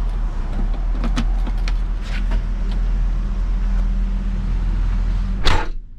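A large engine idling with a steady low rumble, with scattered light knocks and clicks. A louder clatter comes about five and a half seconds in, then the sound cuts off sharply.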